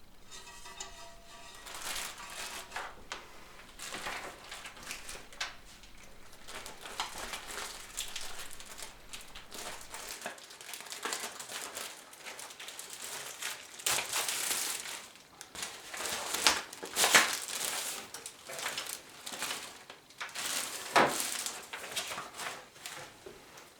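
Packaging rustling and crinkling as it is handled, with a few sharper, louder crinkles in the second half.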